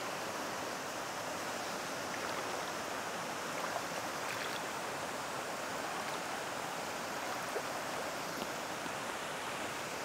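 Steady rush of a shallow mountain stream flowing over rocks.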